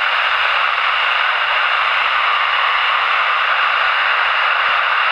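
Steady loud hiss of FM static from a handheld VHF/UHF transceiver's speaker, its squelch open on the AO-51 satellite downlink with no signal left as the pass ends.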